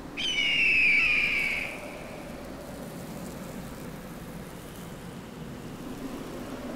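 A hawk's screech: one long, high cry that falls slightly in pitch near the start. Then steady wind hisses on.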